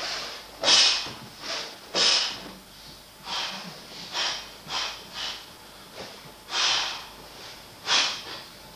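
A martial artist's short, forceful exhalations, hissed through the nose and mouth with each strike and kick of an American Kenpo form: about ten sharp bursts at irregular intervals.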